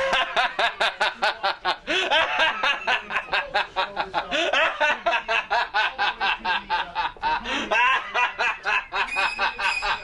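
A man laughing on and on in a long, rapid "ha ha ha", about five laughs a second, each rising and falling in pitch.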